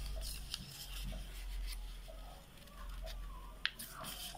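A sheet of paper being folded and pressed flat by hand on a table: faint rubbing and rustling with a few small clicks, one sharper tick a little after three and a half seconds in.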